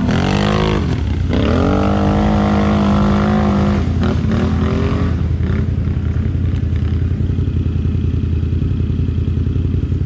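Quad bike engines: one is revved hard as an ATV climbs a steep slope, its pitch rising, holding high and falling away over the first five seconds. Under it, and alone for the rest, is the steady low pulsing idle of a Can-Am Renegade 800's V-twin close by.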